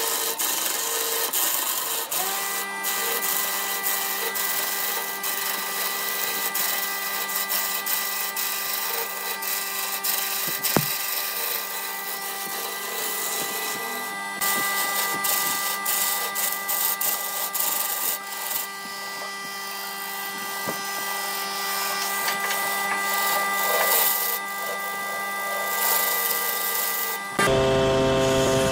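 Wood lathe running while a turning gouge cuts into the spinning blank of bamboo chopsticks set in epoxy resin: a continuous scraping hiss of the cut over a steady hum. Near the end the sound changes abruptly to a louder, lower rumble of the lathe.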